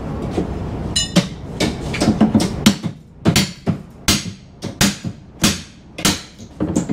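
Hammer blows on a pry bar driven under the nailed lid of a wooden shipping crate: a quick, irregular run of sharp metal-on-wood knocks, about two to three a second, starting about a second in.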